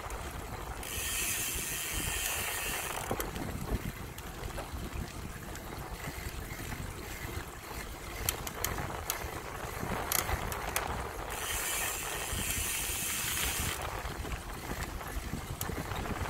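Bicycle rear hub freewheel ticking rapidly while the rider coasts, in two spells of about two seconds each, near the start and again past the middle, over a steady low rumble of wind on the microphone and small knocks from the ride.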